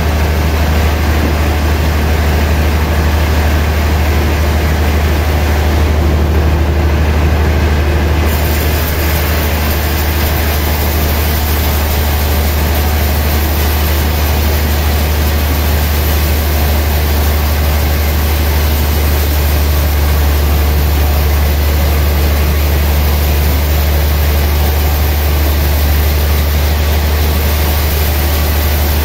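Large band sawmill running steadily with a loud low hum, its blade sawing through a gayam log. A brighter hiss comes in about eight seconds in.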